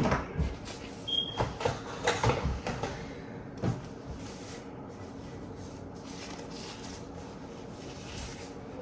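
Cardboard box and packaging being handled and set aside: a run of light knocks and scuffs over the first few seconds, then quiet room tone.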